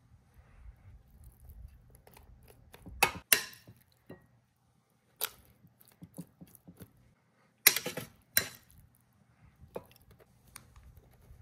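Metal kitchen tongs clacking against an air fryer basket while sliced steak is picked up and spread. There are two sharp clacks about three seconds in, one a little after five seconds, and a cluster around eight seconds, over a faint low hum.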